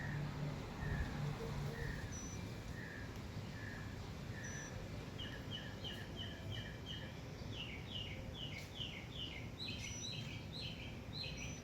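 A songbird singing in repeated phrases: evenly spaced chirps at first, then from about halfway a faster run of higher, clipped notes, about four a second, over steady low background noise.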